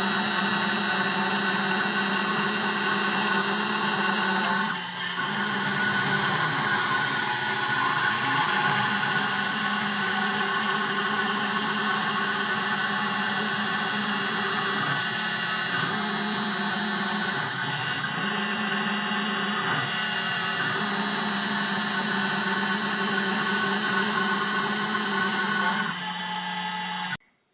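Spindle of a small CNC 3040 router milling plastic board: a steady high whine over the cutting noise, with a brief dip about five seconds in. It cuts off suddenly near the end.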